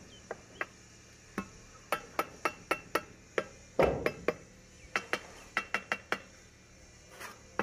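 Steel mason's trowel tapping terracotta roof tiles to bed them in cement mortar: an irregular run of sharp clinks with short ringing, and one heavier thud a little under four seconds in.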